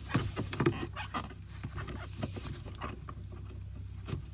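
Small irregular clicks and knocks as a rubber fuel hose is pushed back onto the fuel pump fittings by hand.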